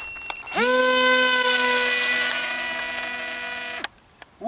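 Electric motor and propeller of a Zagi flying-wing RC plane spinning up to full throttle at hand launch: a quick rise to a steady high whine about half a second in. The whine slowly fades as the plane climbs away, then cuts off abruptly about four seconds in.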